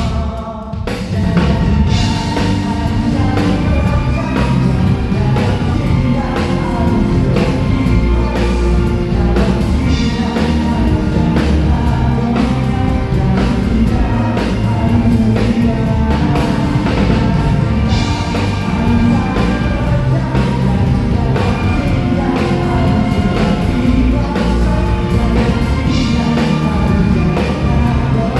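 Live rock band playing a song with drum kit and a singer, amplified through a PA during a soundcheck. A short drop in the music in the first second, then it runs on at full level.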